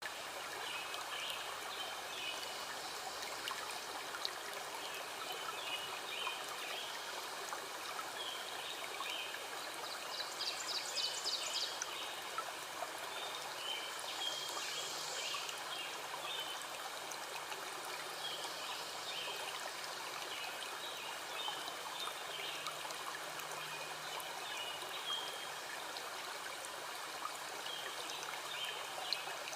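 Steady rush of a mountain stream, with small songbirds chirping over it again and again. A fast, high trill comes about ten seconds in and another high song a few seconds later.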